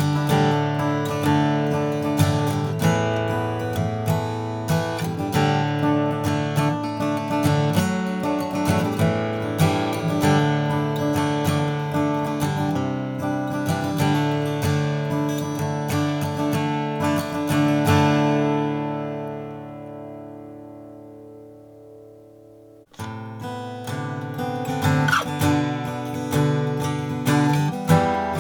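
An all-mahogany Martin Custom Shop Style 18 acoustic guitar, with flamed mahogany, played with strummed and picked chords. About two-thirds of the way through, a chord is left to ring and fade away. The playing breaks off and starts again a few seconds later.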